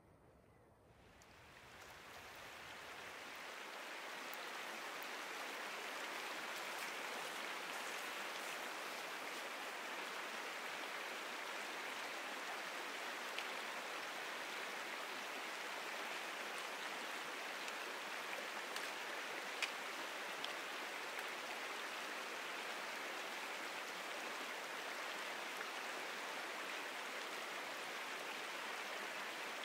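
Steady rush of flowing water, fading in over the first few seconds, with a few faint ticks.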